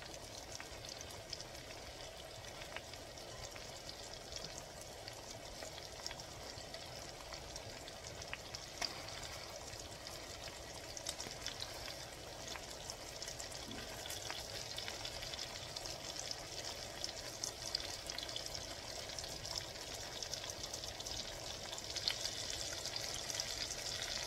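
Seasoned pork chops searing in a skillet: a steady sizzle with fine crackling, growing a little louder near the end.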